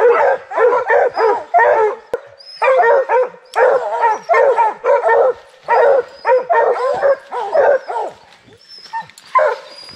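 A pack of bear hounds barking in quick succession, about two to three barks a second with a short lull near the end: hounds barking treed at a bear up the tree.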